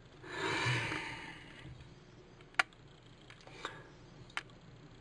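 Water dripping from a shut-off copper supply pipe under a sink, a few sharp drips about a second apart, showing that the line has not fully drained. A short soft hiss comes just before the drips.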